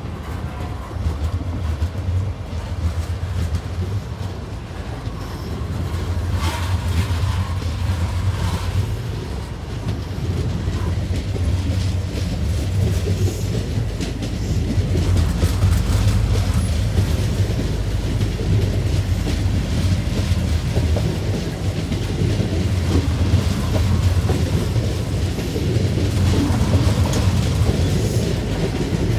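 Venice Simplon-Orient-Express coaches rolling past close by: a steady low rumble with wheels clattering over the rail joints, getting a little louder about halfway through.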